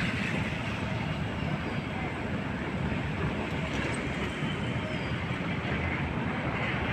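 Steady rumble of road traffic on the bridge, an even, continuous noise with no distinct events.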